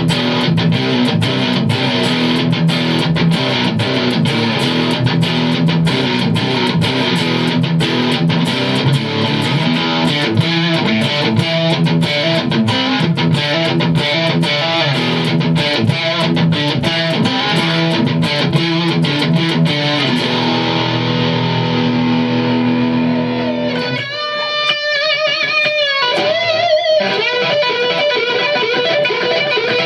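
Electric guitar played through a Pix Pickups Invoker active ceramic humbucker in the neck position, with overdrive. It plays fast picked riffing, then a held chord about 20 seconds in, then single lead notes with vibrato from about 24 seconds.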